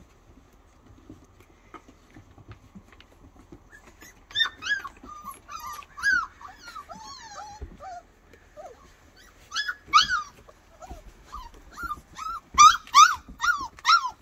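Four-week-old flat-coated retriever puppies whining and yipping in short, high-pitched cries. The cries begin about four seconds in and come quicker and louder near the end.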